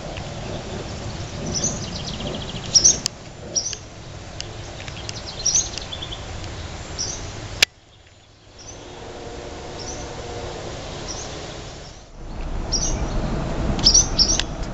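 Barn swallows giving repeated short, sharp high chirps, their alarm calls while diving at pets near the nest, several in quick clusters throughout.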